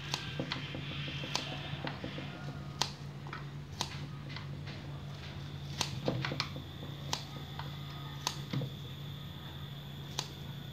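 Kitchen scissors snipping through a handful of wet kenikir leaves: short, sharp snips at an irregular pace, roughly one every half second to second and a half, over a steady low hum.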